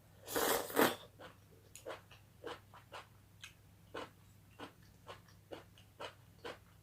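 Close-up chewing of chicken bones: a loud crunching bite near the start, then steady crunching chews about twice a second.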